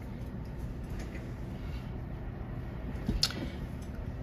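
Quiet room tone with a steady low hum, broken by one short click a little past three seconds in.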